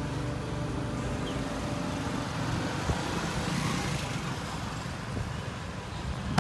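Street traffic noise: a motor vehicle passing, its sound swelling about halfway through over a steady background hum.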